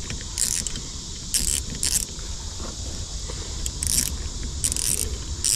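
Spinning fishing reel being cranked by hand in short turns, a whirring hiss that comes and goes several times. The reel is freshly lubricated with food-grade silicone to cure a clicking and squeaking.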